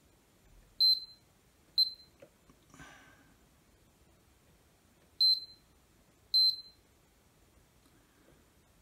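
Digital multimeter on diode test giving four short, high beeps as its probes touch the legs of a suspect MOSFET, with a brief rustle of handling about three seconds in.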